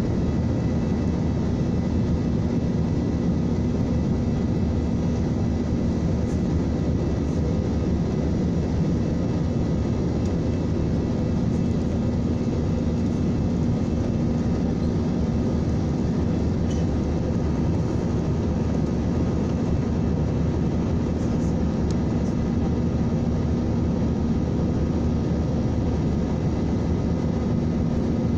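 Steady roar inside a jet airliner's cabin during the climb after takeoff: turbofan engine and airflow noise heard at a window seat beside the wing engine, with a steady low hum and a faint high whine over it.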